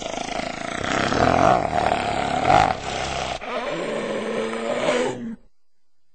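Cartoon hyena vocal: a rough, raspy growling sound lasting about five seconds, then cutting off suddenly.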